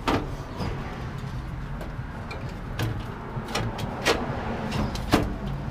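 A sheet-metal box made from an old welder's case knocking and clanking about five times as it is handled and fitted into place, the sharpest knocks just after the start and near the end, over a low steady rumble.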